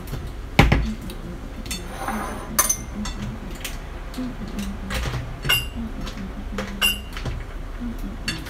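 Kitchen clatter as tongs and cookware clink against a frying pan: a sharp knock about half a second in, then scattered clinks, some ringing briefly.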